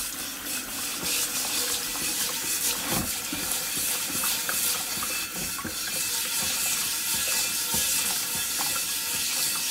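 Tap water running and splashing onto the underside of a cast iron skillet in a stainless steel sink, with the light scratching of a plastic-bristled brush scrubbing the iron.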